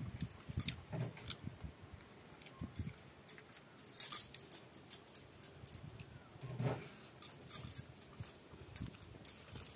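Bangles on a wrist jingling in many quick little clinks as a hand mixes and picks up rice and fish on a banana leaf, with eating sounds in between, the loudest about two-thirds of the way through.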